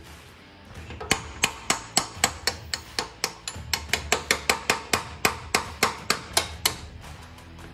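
Hand hammer striking the steel of a vehicle leaf spring and shackle: a quick run of about two dozen sharp, ringing metal strikes, roughly four a second. The strikes start about a second in and stop about a second before the end.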